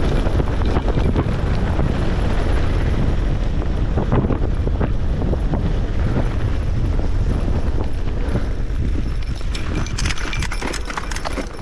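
Mountain bike descending a dirt trail at speed: wind rushing over the microphone, tyres running on loose dirt and gravel, and the bike rattling and knocking over bumps, with sharper clicks near the end.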